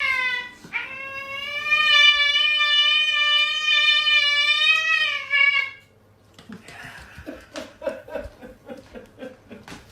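A long, high-pitched call held steady for nearly six seconds with a slight waver, cutting off fairly suddenly. A quieter run of short, rapid vocal pulses follows.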